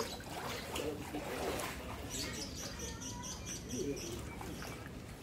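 Small birds chirping in a quick run of short, high notes, over faint distant voices and steady outdoor background noise.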